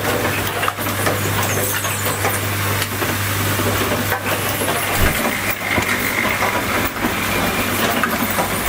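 Automated cable holder terminal assembly machine running: a steady low hum under dense mechanical noise, with frequent short clicks and knocks from its working mechanism.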